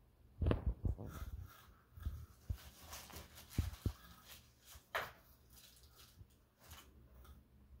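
Kraft packing paper crinkling and rustling as hands dig through it and pull out a small wrapped item, in short irregular bursts with a few sharp clicks of handling.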